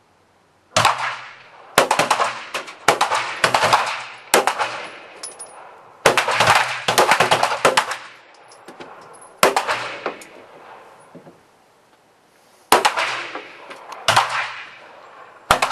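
Pistol shots from several shooters firing along the line in a competition test series. After a quiet first second the shots come irregularly, sometimes several in quick succession, each followed by a short ringing echo.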